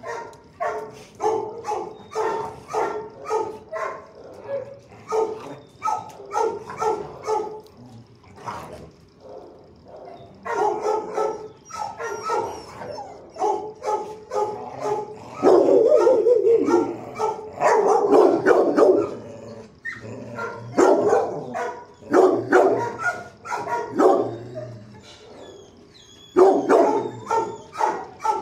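Shelter dogs barking in quick runs of short barks, with brief lulls about nine seconds in and a few seconds before the end; the loudest, densest barking comes about midway.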